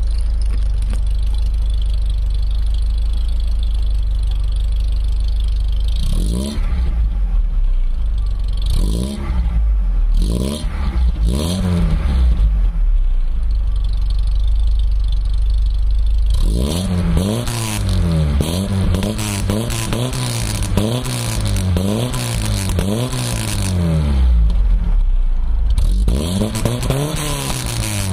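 Opel Calibra 2.0-litre four-cylinder exhaust heard close to the tailpipe, running with a steady low rumble, then rising and falling in pitch in short swells from about six seconds in. In the second half the swells come over and over, about one a second, the uneven, lumpy idle that an added exhaust-sound system gives it in imitation of an old American V8.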